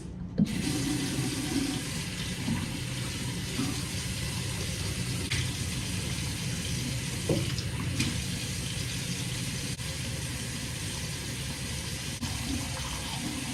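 Bathroom sink tap turned on about half a second in, then water running steadily into the basin.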